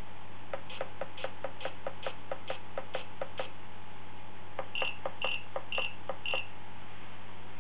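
Short electronic beeps from a handmade warp core simulation PADD prop as its up and down buttons are pressed: a quick run of about a dozen beeps at roughly four a second, then four beeps of a different tone about half a second apart.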